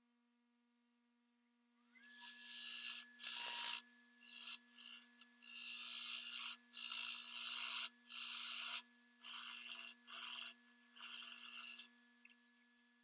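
A wood lathe comes up to speed about two seconds in, and about ten loud rasping strokes of uneven length are worked against the spinning cherry workpiece.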